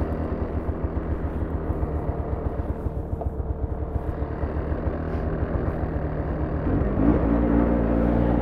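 Arctic Cat Blast LT snowmobile engine running slowly with a pulsing beat, then speeding up with a rising pitch about seven seconds in as the sled pulls away.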